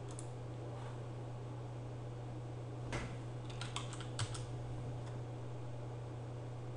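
Computer keyboard keystrokes: a short run of quick key taps about three to four and a half seconds in, as a command is typed, over a steady low hum.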